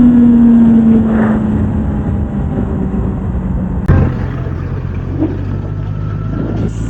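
Kawasaki Z900's inline-four engine through the stock exhaust, its revs falling slowly as the bike rolls off. A sharp click comes about four seconds in, after which the engine runs steadily at lower revs.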